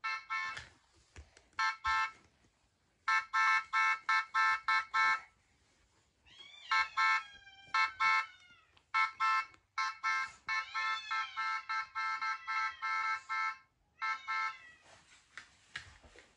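Electronic beeping from a children's sound-button book: runs of short pulsed tones, several a second, in bursts, with a few sliding, wavering tones mixed in about halfway through.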